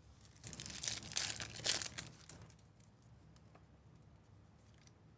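Trading-card pack wrapper crinkling and tearing as a pack is opened, for about two seconds starting half a second in, then faint handling of cards.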